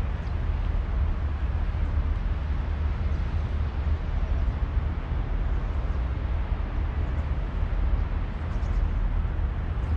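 Steady outdoor city ambience: a low, even rumble with no distinct events, and a few faint light clicks about eight or nine seconds in.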